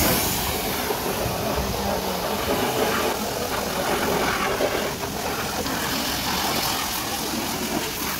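High-pressure water jet from a pressure-washer wand spraying into a car's engine bay: a steady hissing spray of water.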